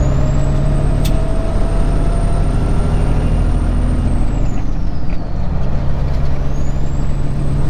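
Semi-truck diesel engine running under load inside the cab, with road noise and a thin high whine. About four seconds in, the engine note and the whine sag and fall away as the throttle eases, then come back about two seconds later. A single sharp click sounds about a second in.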